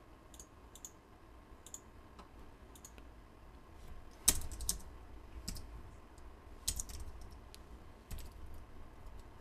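Computer keyboard keystrokes and mouse clicks, scattered and irregular, one or two at a time.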